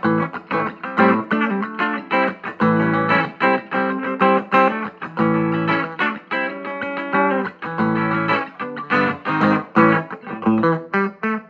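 Electric guitar with vintage DeArmond goldfoil pickups played through a vintage 5-watt tube amplifier, formerly a film-projector amp, driving a 10-inch Cannabis Rex speaker. It plays a run of quickly picked notes, with a few chords held longer.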